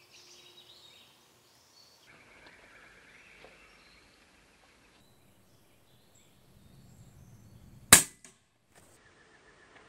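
A single shot from a Daystate Red Wolf .177 HP PCP air rifle: one sharp, loud crack about eight seconds in, followed a moment later by a faint tick.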